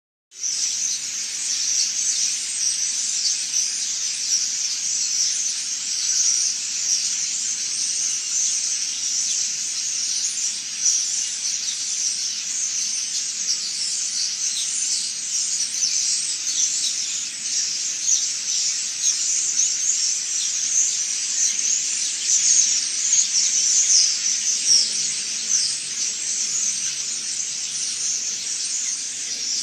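A dense chorus of many small birds chirping and twittering at once, the high calls overlapping into one continuous chatter that never lets up.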